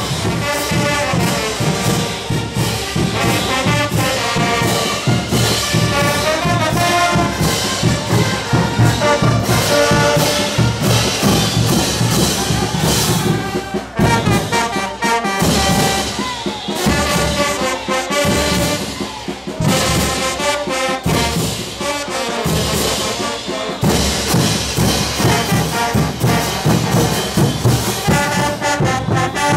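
A marching brass band playing. Brass horns carry the tune over a steady beat of bass drums and clashing hand cymbals.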